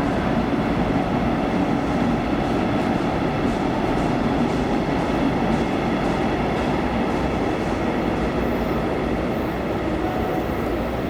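Electric train running through the station: a steady rumble of wheels on rail with a faint high whine, easing slightly near the end.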